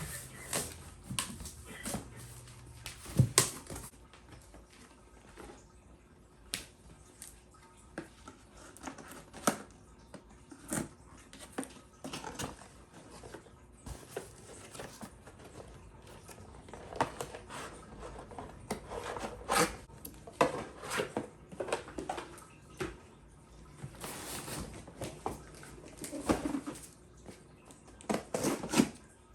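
Unpacking and handling sounds: irregular clicks, knocks and light clattering as packaging and tool parts are moved about, with a few louder knocks.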